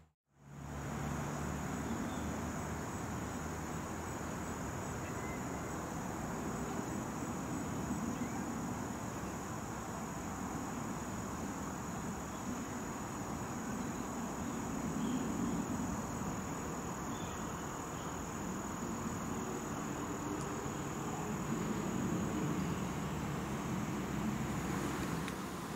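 Insects trilling in one steady, unbroken high note that stops near the end, over a low, even rumble that swells and fades. The sound drops out for a moment at the very start.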